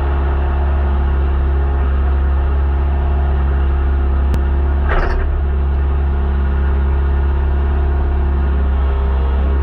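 Renault Clio Rally4's engine idling steadily, heard from inside the cabin while the car stands still. A short click and a brief burst of noise come near the middle.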